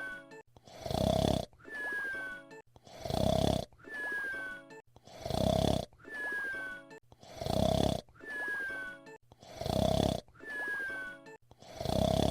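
Cartoon whistle-snore: a loud, rasping snore followed by a thin, falling whistle, the pair repeating evenly about every two seconds.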